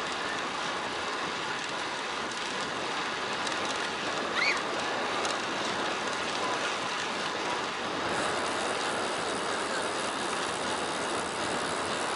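Steady rushing of wind over an action camera's microphone together with road-bike tyres rolling on asphalt while riding. A brief high chirp rises once about four and a half seconds in.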